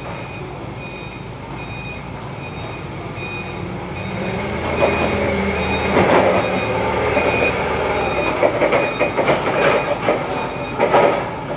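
Forklift running and approaching, its warning beeper sounding as a steady string of short beeps while the engine grows louder from about four seconds in. Rattling knocks toward the end.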